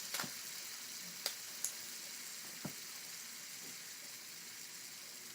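Several fidget spinners spinning at once, their ball bearings giving a faint, steady whirring hiss that eases slowly as they lose speed, with a few light clicks.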